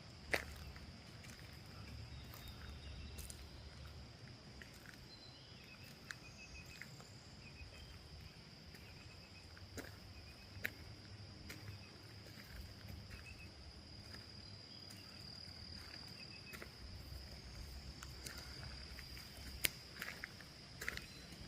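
Insects trilling in one steady high tone, with a few faint chirps and several sharp clicks over a low rumble.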